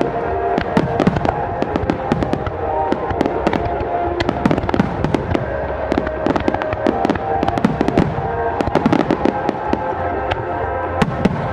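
Fireworks going off in quick succession: many sharp cracks and bangs, several a second.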